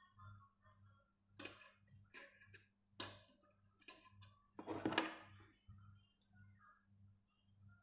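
Faint clicks and taps of steel wire and locking pliers being handled as the wire is bent by hand, with a louder rattling scrape about five seconds in.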